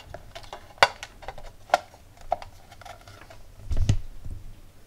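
Clear plexiglass door panel being handled on its hinges, giving a few sharp plastic clicks and taps, then a duller knock about four seconds in as it swings shut against the wooden case.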